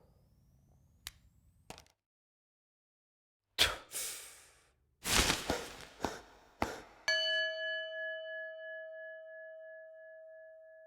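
Several sharp knocks or hits, then a struck metal object rings out like a bell, a clear ringing tone with several overtones that fades slowly over about five seconds.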